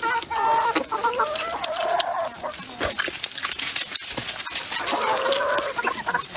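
Chickens clucking in a few short calls, over close-miked chewing and mouth clicks from someone eating a piece of pork.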